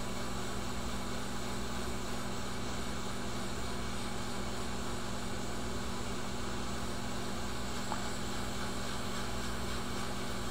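Quick 861 hot air rework station blowing steadily over a circuit board chip to melt its solder for removal. The sound is an even airy hiss with a low hum under it, unchanging throughout.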